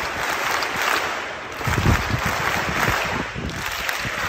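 Football stadium crowd noise: a continuous din from the stands that swells and fades a few times, with a few low thumps about two seconds in.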